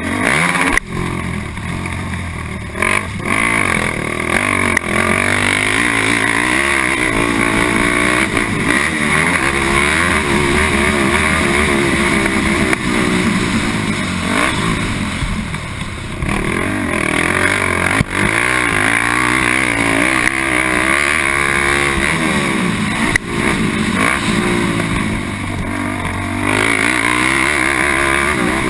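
Honda TRX450R quad's single-cylinder four-stroke engine racing on a motocross track, the revs rising and falling through acceleration and braking. There are a few sharp knocks along the way.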